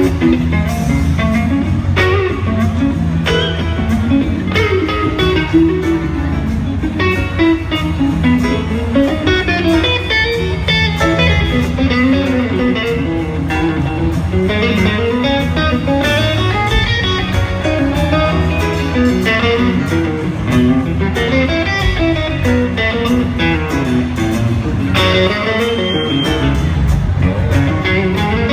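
Live band music with an electric guitar solo on a Gibson Firebird: lead guitar lines over bass and drums.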